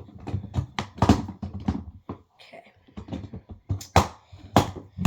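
Hard-plastic Kobalt CaseStack toolbox being handled and opened: a series of irregular sharp clicks and knocks, loudest about a second in and again near the end.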